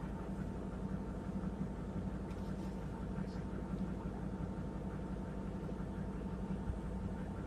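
Steady engine hum holding a constant pitch, with no change in speed.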